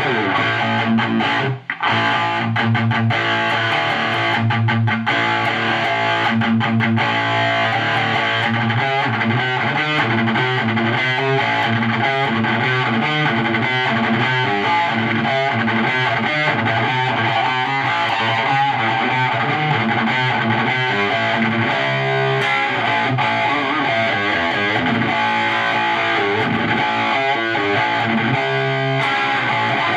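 Heavily distorted electric guitar played on the bridge pickup through a homemade overdrive pedal modelled on the Ibanez TS-9 Tube Screamer, into the high-gain distortion channel of a 50-watt tube guitar amplifier. The playing stops for a moment about two seconds in, then runs on steadily.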